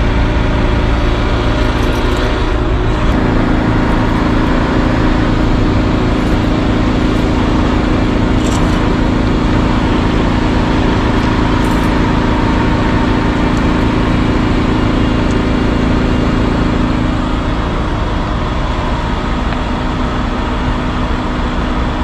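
An engine running steadily at idle, a constant low drone with a hum that strengthens a few seconds in and eases off near the end.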